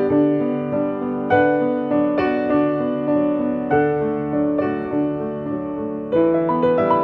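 Background piano music: slow chords struck about once a second and left to fade, the notes coming quicker near the end.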